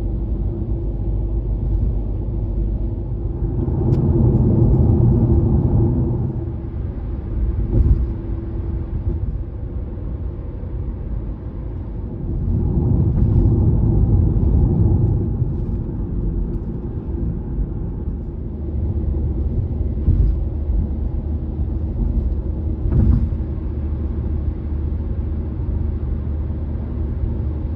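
Car road noise at expressway speed: a steady low tyre rumble that swells twice, with a handful of short thumps as the wheels cross bridge expansion joints.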